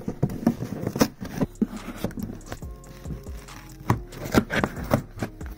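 Folding knife stabbing and cutting into a corrugated cardboard box: irregular sharp knocks as the blade punches through, with scraping and tearing of the cardboard between them.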